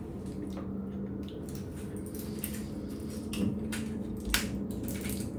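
Foil blister pack of pills being handled, with a few crinkles and a sharp click a little past four seconds in, over a steady low hum.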